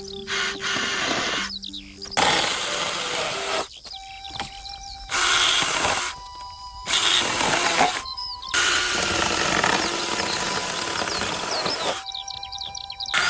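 Choppy run of work noise from building with bamboo: loud, rough scraping or sawing stretches that start and stop abruptly, alternating with quieter gaps of bird chirps and a faint steady tone.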